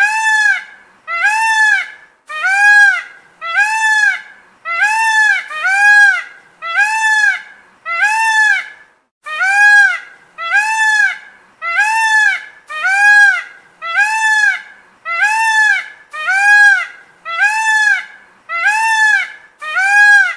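Peacock (Indian peafowl) calling over and over: a steady series of loud, nasal honks, about three every two seconds, each rising and falling in pitch, with two short breaks.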